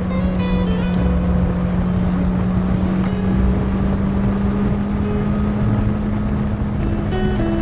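Motorcycle engine running at a steady pitch at cruising speed, with wind rushing over the camera.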